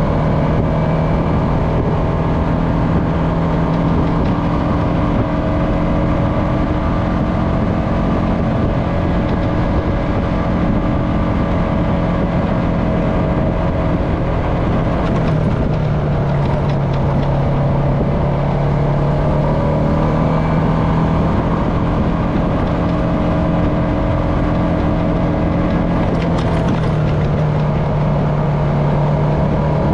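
Honda FourTrax Foreman ATV engine running steadily under way at trail speed. The engine note dips about halfway through, then climbs back up, and rises again near the end as the throttle changes.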